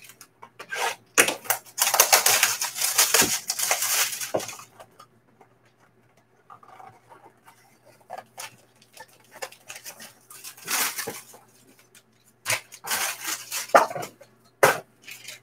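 Plastic shrink-wrap crinkling and tearing as it is stripped off a trading card box. There is a long burst about a second in and shorter bursts later, with light clicks and taps as the box is handled.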